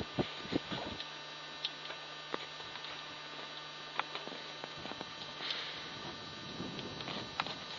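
Scattered small clicks and taps of hands working at the wing-to-fuselage joint of a small fixed-wing UAV, over a steady low hum that stops about six seconds in.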